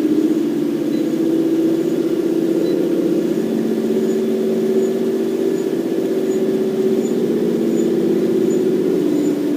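Motorised treadmill running steadily at speed, its motor and belt giving a continuous hum, with a faint high tick repeating about every three-quarters of a second.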